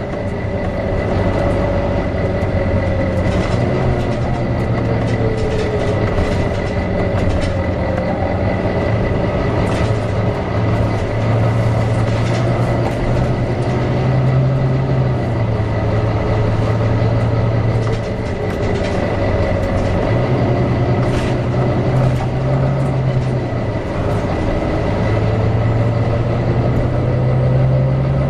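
Volvo B9TL double-decker bus running, its engine drone stepping up and down in pitch every few seconds, with a whirr that slowly rises and falls (the bus's cooling fan) and a constant thin high whine. Scattered rattles and clicks throughout.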